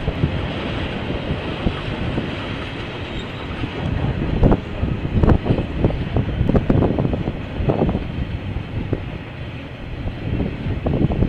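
KiwiRail train passing over the track, its wheels clattering over rail joints in groups of knocks about halfway through and again near the end, over a steady rushing rumble.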